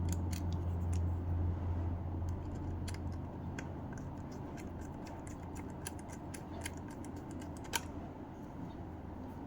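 Irregular light clicks and taps, one sharper click near the end, over a low steady hum that weakens after about three seconds.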